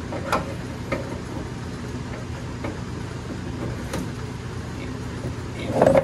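A few light metal clicks as a go-kart centrifugal clutch is slid onto the engine's crankshaft and its key lined up, over a steady low hum. A louder burst of noise comes near the end.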